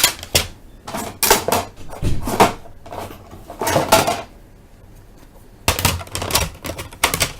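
Hard plastic card holders clacking and clattering together as stacks of cards are handled and set down, in irregular bursts of sharp clicks.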